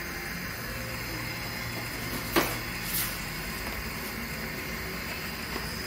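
Steady low mechanical hum of workshop equipment, broken by two short knocks, the first about two and a half seconds in and the second half a second later.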